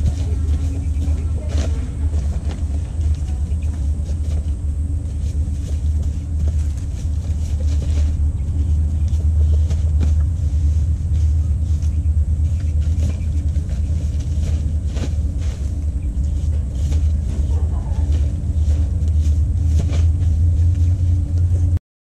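A steady low rumble with scattered light clicks and rustles over it, cutting off abruptly just before the end.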